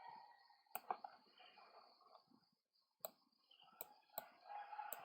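A handful of sharp computer mouse clicks, spaced irregularly, over near silence.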